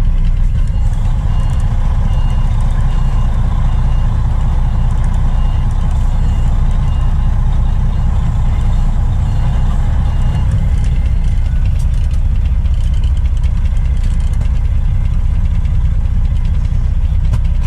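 A truck's engine running with a steady low rumble, while its reversing alarm beeps about twice a second from about two seconds in until about ten seconds in, the sign that the truck is backing up.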